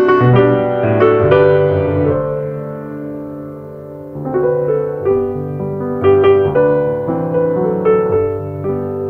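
Background piano music, a slow melody of held notes over a bass line.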